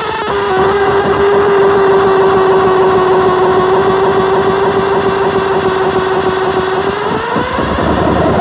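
Noise pedal's droning tone through a Headrush speaker cabinet: a loud, steady, noisy pitched drone that drops a little in pitch about half a second in, holds, then slides upward near the end.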